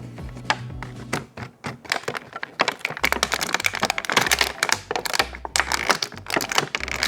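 Hard plastic toy packaging and toy parts being handled and opened: rapid, irregular clicks, taps and cracks.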